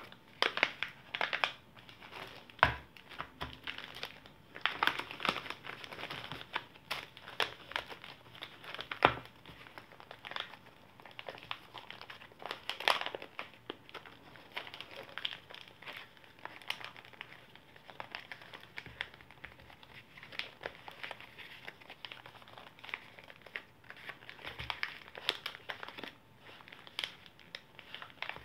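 Irregular crinkling and rustling of white zip-top packaging pouches and plastic bags being handled and opened, with a few louder crackles.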